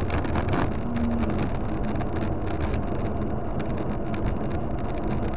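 Steady low rumble of a moving car's engine and road noise, with wind buffeting the microphone.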